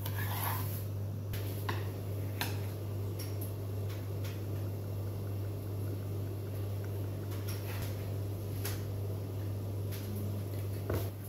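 Food-prep handling sounds over a steady low hum: a knife slicing on a plastic cutting board at the start, then scattered light taps and clicks of utensils against a glass bowl.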